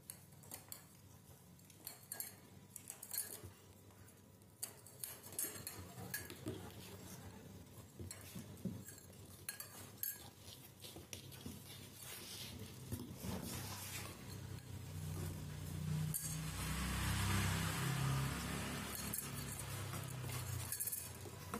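Scattered light taps, clicks and clinks as two kittens scuffle and paw at each other on a cardboard box strung with rope on metal posts. About three-quarters of the way through, a louder rushing noise with a low rumble swells for a few seconds, then fades.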